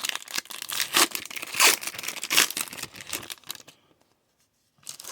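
Crinkling and tearing of plastic trading-card packaging as the cards are handled. It stops about four seconds in, and a brief rustle follows near the end.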